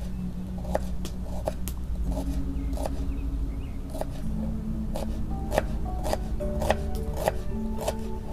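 Background music with steady held notes, over irregular sharp taps of a knife cutting on a board, roughly one or two a second.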